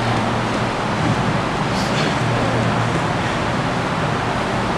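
Steady rushing background noise with a low, even hum underneath.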